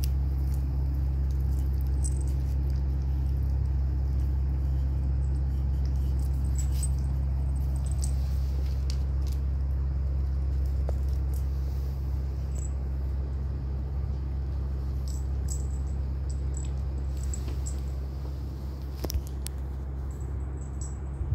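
Puppies eating dry kibble from a stainless steel bowl, with scattered light clicks and crunches of the pellets, over a steady low hum.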